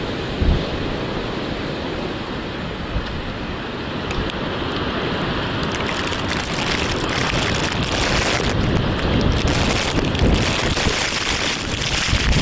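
Continuous rushing roar of a dense ash cloud billowing past, with heavy wind buffeting on the microphone. About six seconds in it grows louder and hissier, with a dense crackle.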